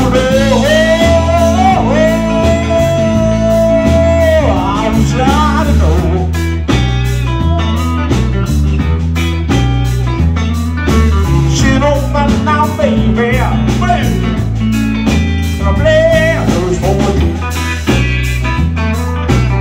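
Live blues band playing an instrumental passage. An electric guitar solo with string bends and a long held note about two seconds in runs over a bass line and drums.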